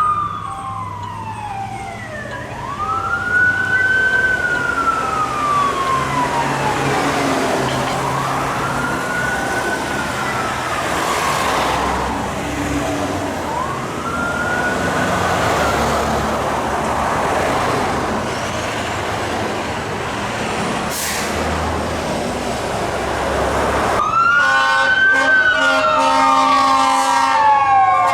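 Fire engine siren in a slow rising-and-falling wail, one cycle every four to five seconds, over road and engine noise. About 24 seconds in the sound changes suddenly to a closer, clearer siren with a steady air horn blast sounding over it.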